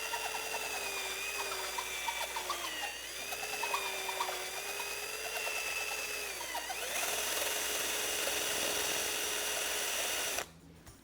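Hand drill spinning a homemade dowel flap sander, its sandpaper flaps ticking rapidly against the inside of a drilled hole as it smooths the walls. The motor whine sags in pitch twice under load, runs steadier for the last few seconds, then stops abruptly near the end.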